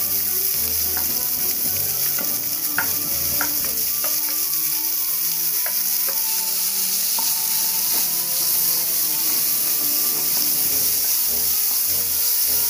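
Chopped onions frying in hot oil in a kadai: a steady high sizzle as they go into the oil, with a wooden spatula scraping them off a plate and stirring them, giving scattered clicks and scrapes in the first half.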